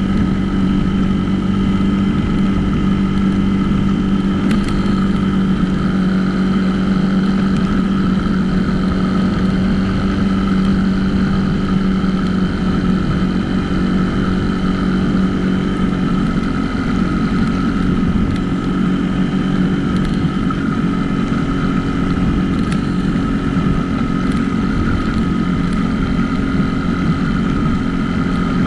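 Dirt bike engine running steadily under way, its pitch stepping up slightly about halfway through.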